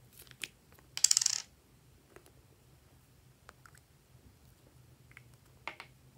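Small plastic lip balm pots clicking and clattering as they are handled, with a dense half-second rattle about a second in and a few lighter clicks around it.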